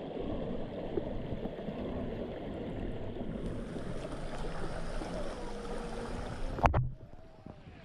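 Steady rushing of river water, with one sharp knock near the end, after which it is quieter.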